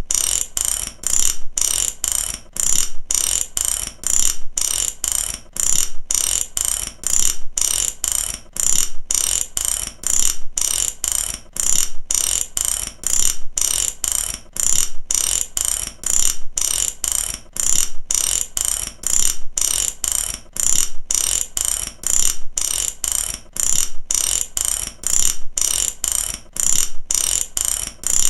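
Ratchet wrench being worked back and forth, its pawl clicking rapidly over the gear teeth in short bursts about twice a second with brief gaps between strokes.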